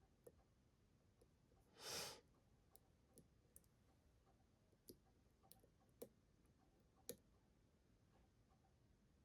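Faint, irregular clicks of a lock pick and tension wrench working inside a Kwikset SmartKey padlock cylinder during single-pin picking, with one short breathy hiss about two seconds in.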